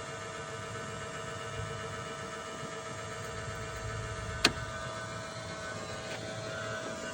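Automotive smoke machine running, a steady mechanical hum with fixed tones from its pump, with one sharp click about four and a half seconds in.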